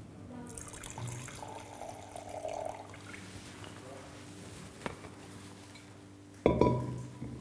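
Red wine trickling and splashing as it is poured from a glass decanter into a wine glass: the decanter is being rinsed with wine before decanting. A sudden knock sounds about six and a half seconds in.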